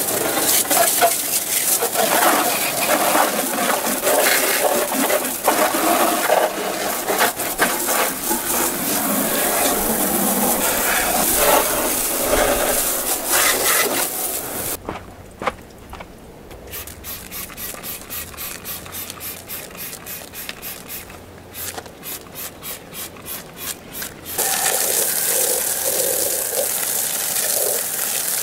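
Water jetting from a garden-hose spray nozzle and splattering onto a muddy ATV's bodywork and tyres, a loud steady hiss. About halfway through it drops quieter for several seconds with a regular pulsing, then comes back loud near the end.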